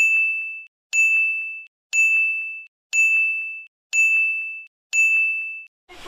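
A high electronic beep repeated once a second, six times, each tone about half a second long with a sharp start and a fade, over dead silence.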